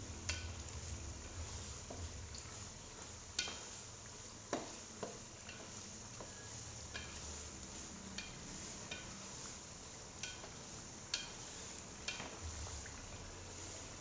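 A spatula stirring thick chili sambal cooking in a stainless steel pot, over a steady sizzle, with sharp taps and scrapes of the spatula against the pot about once a second.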